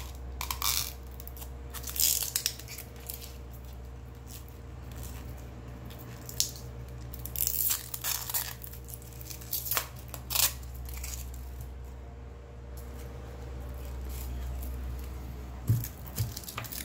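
Thin plastic protective film being peeled and crinkled off a plastic earbud charging case, in scattered short crackling, tearing bursts.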